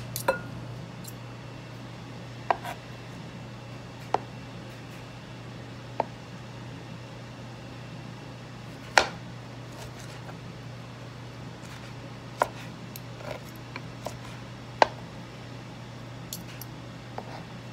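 Metal knife and fork clicking and clinking against cookware, about a dozen sharp, irregular taps, the loudest about nine seconds in and again just before fifteen, over a steady low hum.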